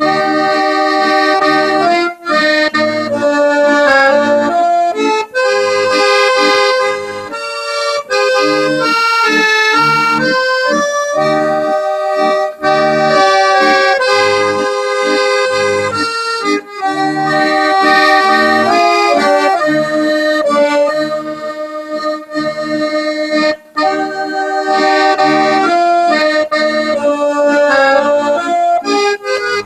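Background music led by accordion, a lively tune over a pulsing bass accompaniment.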